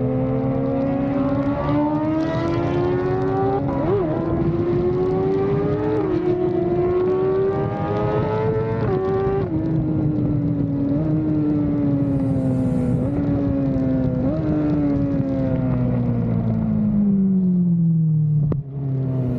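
Inline-four superbike engine accelerating hard through the gears, its pitch climbing and dropping back at each upshift about four, six and nine seconds in. It then slows, with short rev blips on downshifts, and its pitch falls steadily as the bike decelerates. A sharp click comes near the end.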